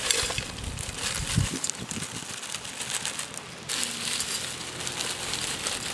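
Plastic bag crinkling as dry whole spices (bay leaves, roots, seeds) are shaken out of it into an aluminium pot, with a dull knock about a second and a half in.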